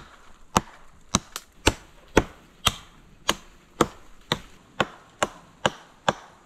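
Axe chopping into a fallen tree: a steady run of sharp single strikes, about two a second.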